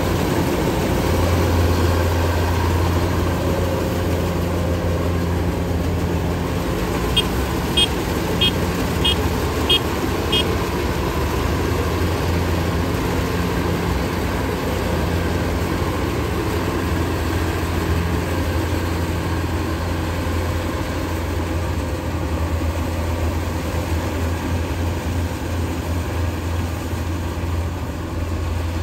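Kubota DC-105X rice combine harvester running steadily as it cuts, its diesel engine and threshing machinery giving a low, even drone. About seven seconds in, six short high beeps come in quick succession.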